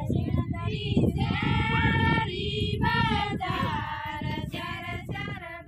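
Group of women singing a Rajasthani folk wedding song, unaccompanied, in high voices with long held, wavering notes, over a low rumbling noise.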